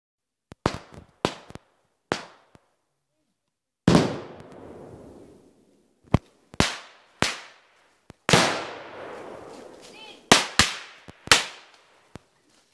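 A string of about seventeen sharp bangs at irregular intervals, simulated battle fire for an infantry movement drill in woodland. Two much louder blasts, about 4 and 8 seconds in, each leave a long echo that dies away over about two seconds.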